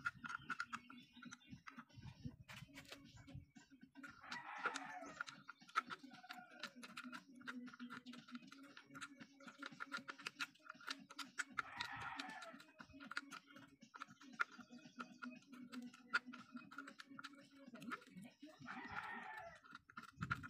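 A rooster crowing three times, about seven seconds apart, over faint clicking and a steady low hum.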